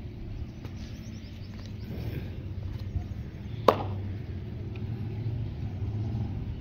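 Steady low rumble, with one sharp crack about three and a half seconds in.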